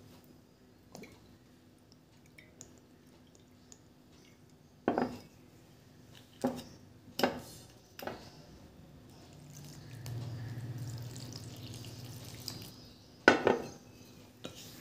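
Sharp knocks and clinks against a glass mixing bowl as ingredients are added. In between, liquid is poured onto flour in the bowl for about three seconds, and a louder knock comes near the end.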